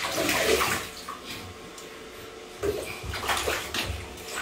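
Bathwater splashing and sloshing as small children play in a bathtub, loudest in the first second, with lighter splashes later on.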